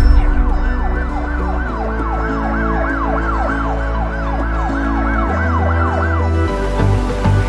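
Background music with a siren-like wail: a fast rising-and-falling glide, about three a second, over steady held bass and synth tones. The wail stops about six seconds in, and a steady hiss comes in near the end.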